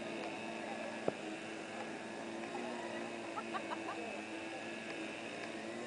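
A steady low mechanical hum with a few faint short chirps about three and a half seconds in and one sharp click about a second in.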